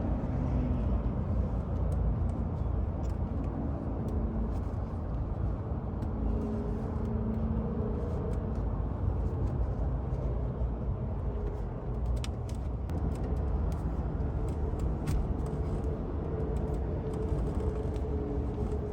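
Steady low vehicle rumble with a faint hum, and a few light clicks from the e-brake handle being worked onto its lever.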